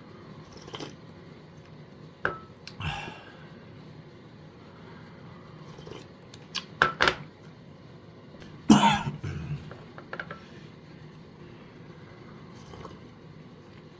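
Scattered light clicks and taps of small objects being handled, with one louder cough-like throat sound about nine seconds in.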